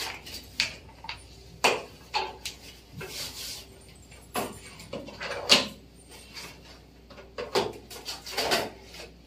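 An incense product pack being handled and opened: irregular rustles, crinkles and sharp clicks of the packaging.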